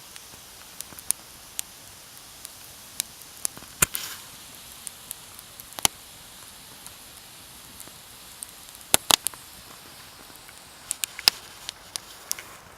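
Campfire wood crackling, with sharp irregular pops over a steady hiss.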